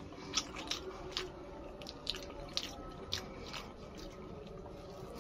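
Wet mouth sounds of a man chewing a mouthful of rice, tofu and boiled egg with sambal: several sharp smacking clicks, mostly in the first four seconds.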